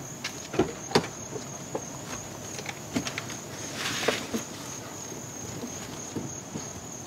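Outdoor summer ambience with the car still off: a steady, thin, high-pitched insect drone, with a few scattered sharp clicks and taps.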